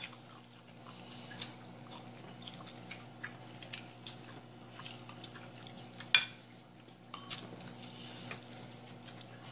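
Metal utensil clinking and scraping against ceramic plates while food is scooped up: scattered light clicks, the sharpest about six seconds in.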